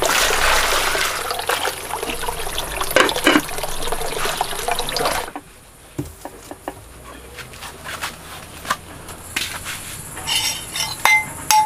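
Water running or being poured, which cuts off abruptly about five seconds in. Then light clicks and a couple of short clinks near the end.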